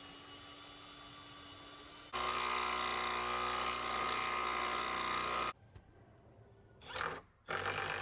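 Power drill running steadily for about three seconds, starting about two seconds in and stopping abruptly, with a brief burst of the same whir near the end.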